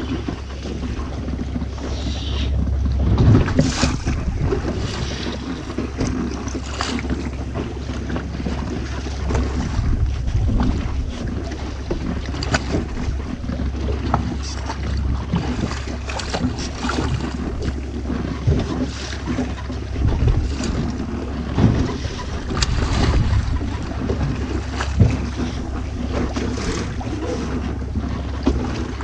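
Wind buffeting the microphone aboard a small fishing boat at sea, over a steady low rumble and water sloshing, with many scattered sharp knocks and clicks.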